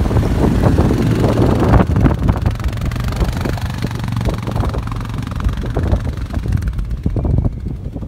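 Suzuki King Quad 750 ATV's single-cylinder engine running as the quad drives past and away over rocky ground, growing a little fainter in the second half, with wind buffeting the microphone.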